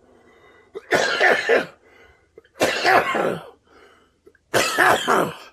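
A man coughing hard three times, each cough a rough, loud burst about two seconds apart.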